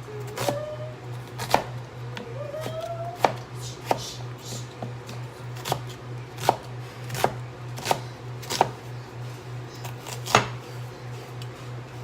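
Kitchen knife chopping an onion on a cutting board, in single unhurried strokes about once a second.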